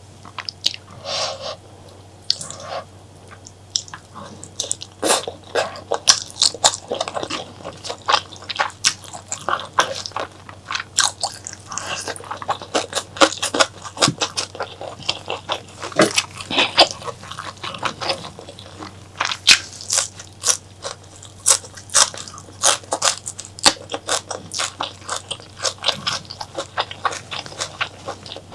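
Close-miked eating of spicy mutton curry and honeycomb tripe: biting and chewing with many sharp, crunchy clicks, sparse for the first few seconds and then coming thick and fast.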